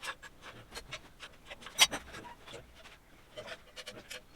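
Scattered light clicks and knocks of parts and tools being handled during an engine strip-down, with one sharp, louder click a little under two seconds in.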